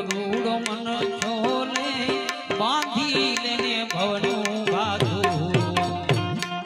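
Music from a Gujarati bhajan: tabla keeping a steady beat under a gliding, ornamented melody. A deep bass line enters about five seconds in.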